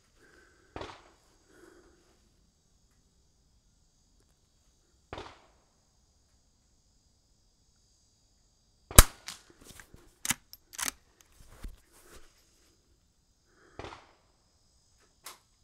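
Suppressed .22 LR rifle shots from a PWS Summit straight-pull rifle with a Gemtech integral suppressor, fired singly a few seconds apart. About two-thirds of the way through, the loudest sharp crack is followed by a quick run of clicks and knocks.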